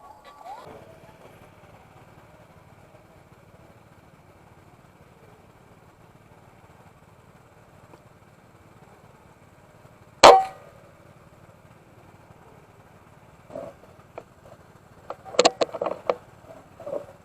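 A single sharp, loud shot about ten seconds in, over a steady low hum. A few seconds later comes a cluster of quieter clicks and knocks.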